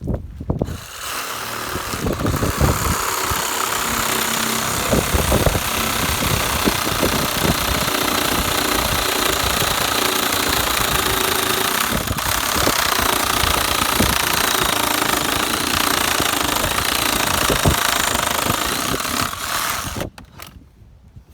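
A loud motor-driven machine starts about a second in, runs steadily with irregular knocking underneath, and stops shortly before the end.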